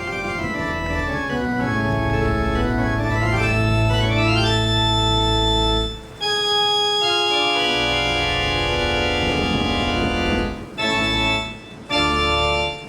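Organ music: a rising run of notes over held bass, a long sustained chord, then two short closing chords.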